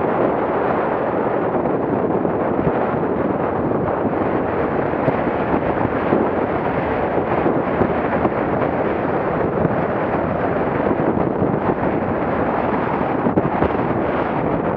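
Strong wind buffeting the microphone, mixed with water rushing and splashing along the hull of a small motorboat in choppy water.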